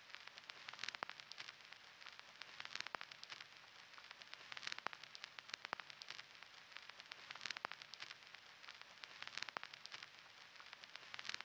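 Vinyl record crackle sample played on its own as an ambient noise layer for a phonk beat. It is a faint steady surface hiss with scattered clicks and louder pops every second or two.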